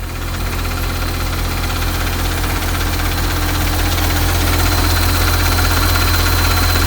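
Ural truck's turbocharged diesel engine idling steadily, with a thin high whistle that grows plainer about halfway through. The crew is hunting a leak in the pipe that carries boost air from the turbocharger, which makes the engine lose power and hiss.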